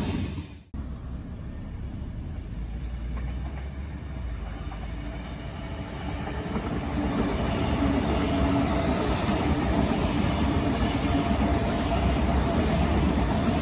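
Electric passenger train running on the rails: a steady rumble with a hum, growing louder from about six seconds in. The sound drops out briefly just under a second in.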